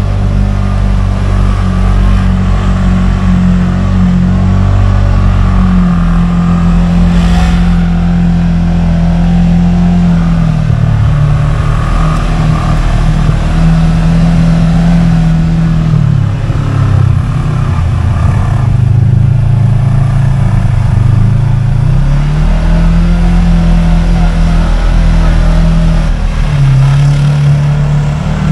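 Segway Villain side-by-side's engine running under load as it drives off-road, its pitch holding, then dropping and climbing back several times with the throttle. A short knock sounds about seven seconds in.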